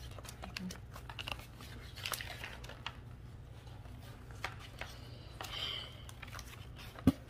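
Packaging being handled: paper and plastic rustling and crinkling with scattered light clicks, and a sharper knock about seven seconds in.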